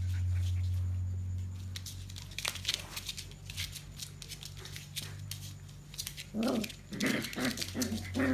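Puppies play-fighting: claws scratching and skittering on a hard floor, then from about six seconds in a run of short play growls, several a second.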